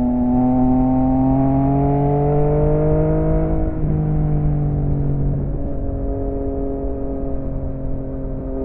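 Yamaha XSR900 motorcycle's inline-three engine through an M4 aftermarket exhaust, pulling hard with the pitch rising, then shifting up about four seconds in and running on at a steadier, slightly falling pitch.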